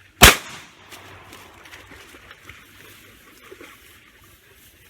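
A single shotgun blast about a quarter of a second in, with a brief ringing tail, followed by faint water sounds.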